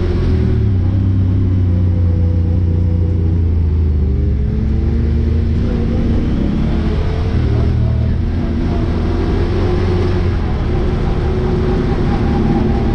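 Side-by-side UTV engine running on a trail, with a steady low hum and the engine pitch rising and falling as the throttle changes.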